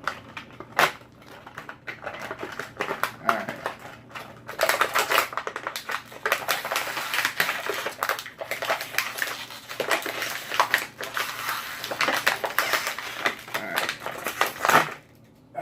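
Plastic toy packaging being handled and pulled apart, a run of irregular crinkling and clicking that grows dense about four seconds in and stops suddenly near the end.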